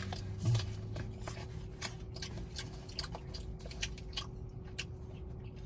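A person chewing food close to the microphone, with many small wet clicks and smacks, over a steady low hum.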